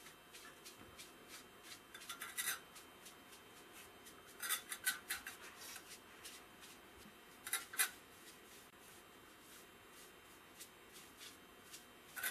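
Stain being rubbed by hand onto a turned wooden tool handle: short bursts of scratchy rubbing and handling, about two seconds in, around four and a half seconds, near eight seconds and again near the end.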